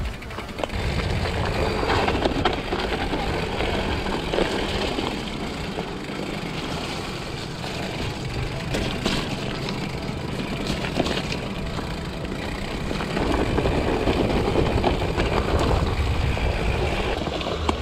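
Mountain bike being ridden along a dirt trail: steady tyre noise with a low rumble, and scattered clicks and rattles from the bike over bumps, getting louder from about two-thirds of the way through.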